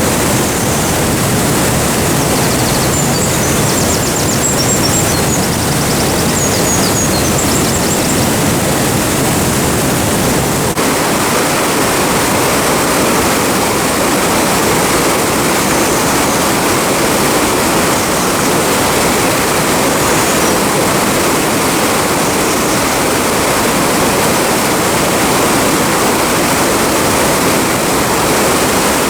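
Waterfall rushing: a loud, steady roar of falling water. The low rumble drops a little about ten seconds in.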